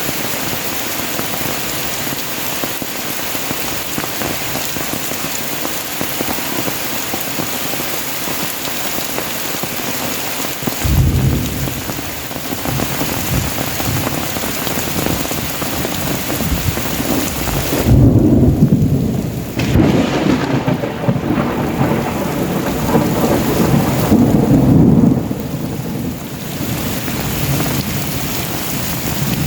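Heavy tropical rain falling in a steady hiss, with thunder rumbling in about a third of the way through and two louder, longer rolls of thunder later on.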